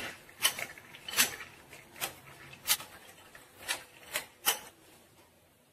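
Metal spoon scraping and knocking against a glass bowl while stirring dried fruit and nuts in orange juice: about seven short strokes at uneven intervals, stopping near the end.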